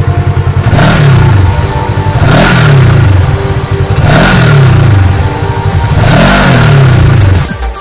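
An engine revs up and falls back about every two seconds, four times, over a fast steady pulse, mixed with music that has steady held notes.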